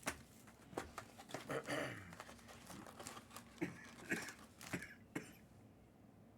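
Trading-card packaging crinkling and tearing as it is opened by hand, with scattered sharp clicks and taps, stopping about five seconds in.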